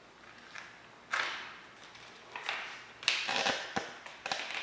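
Sheet of origami paper being handled and folded: a series of short rustles and crinkles, with a sharper crackle about three seconds in.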